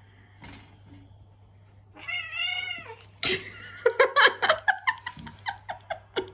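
Tabby cat caterwauling at another cat pressing up against it: one wavering yowl about two seconds in, then a fast string of short, sharp cries and bursts of noise.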